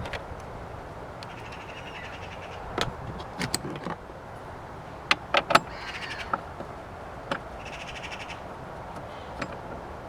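Hand tools on bolts in a car's engine bay: a ratchet clicking in two short runs, and several sharp metallic knocks. The loudest are three in quick succession about five seconds in.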